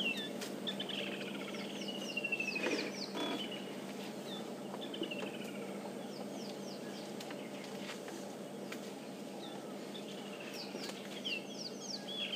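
Kingfisher calling twice, near the start and again near the end: each call is a sharp note followed by a long trill that falls in pitch. Other birds call with short, falling notes, and there is a brief crackle of rustling about three seconds in.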